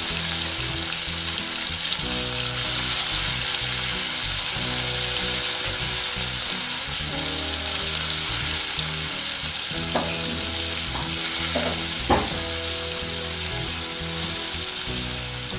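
Thin potato slices and green chillies sizzling steadily in hot oil in a kadai, just after going into the pan. Three short clicks come about ten to twelve seconds in.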